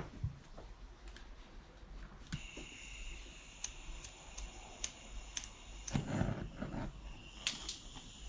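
Scattered light clicks and taps of metal hand tools and engine parts being handled, about half a dozen separate clicks with a short rustle near the end, over a faint steady high tone that starts about two seconds in.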